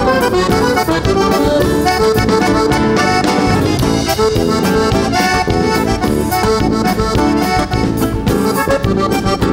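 Instrumental intro of a vaneirão, a fast southern-Brazilian dance tune, played live: accordion leading over acoustic guitar, bass and a steady drum beat.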